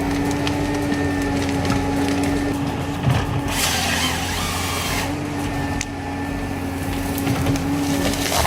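Heavy forestry machine's diesel engine running steadily, with scattered cracks and knocks of wood being handled and a harsh noisy burst lasting about a second and a half, starting about three and a half seconds in.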